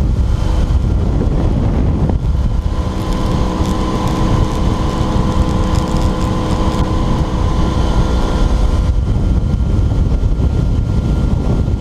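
Motorboat running at speed across open water, with wind rushing over the microphone. A steady engine tone stands out from about two seconds in until about nine seconds in.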